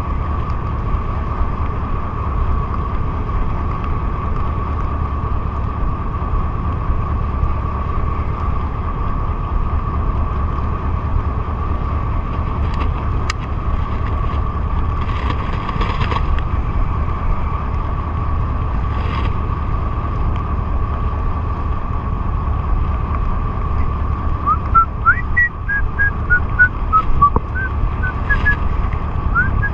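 Boat engine running steadily under way, a low rumble with a constant whine. Near the end, a run of short, rising whistled notes.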